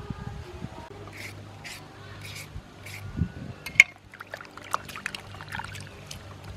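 Water sloshing in a metal pan as cut green vegetables are rubbed and washed by hand: soft swishes about twice a second, then quicker, sharper splashes and drips from about four seconds in, the loudest a sharp splash just before then.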